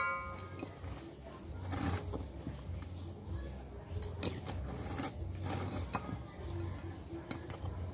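A metal fork and spoon tossing a sweet potato leaf salad in a bowl: scattered light clinks and scrapes of the cutlery against the bowl, over a low steady hum.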